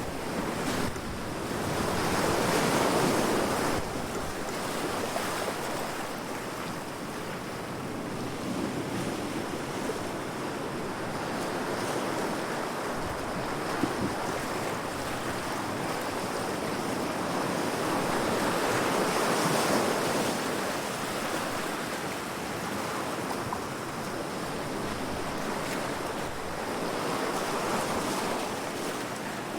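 Heavy ocean waves crashing against rocks: a continuous rush of surf that swells into louder surges several times.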